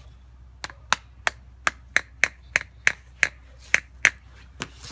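A small hammer striking a plaster fossil-dig block again and again to break it open: about a dozen sharp knocks, roughly three a second, stopping near the end.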